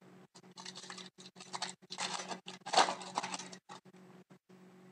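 Foil hockey-card pack being torn open and its wrapper crinkled, in a run of short rustling bursts over about three seconds, loudest a little before the end of them.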